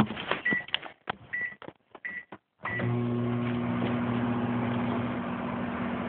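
Microwave oven keypad beeping four times as it is set, with a few clicks, then the microwave starting up about three seconds in and running with a steady hum.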